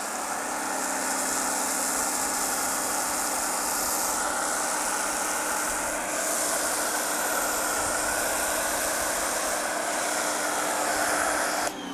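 Pressure washer running while an Adam's Premium Foam Cannon, fitted with a 1.1 mm orifice, sprays foam in a steady hissing jet over a steady pump-motor hum. It cuts off near the end as the trigger is released.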